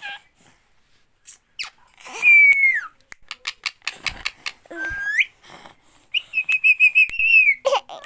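Rose-ringed (Indian ringneck) parakeet whistling. A loud whistle falls in pitch about two seconds in, and a short rising whistle comes around five seconds. Near the end there is a quick run of about eight chirped notes ending in a falling note, with scattered short clicks in between.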